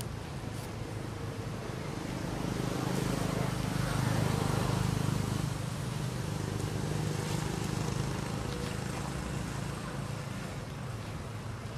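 Low, steady engine rumble of a vehicle going past, growing louder a few seconds in and then fading back.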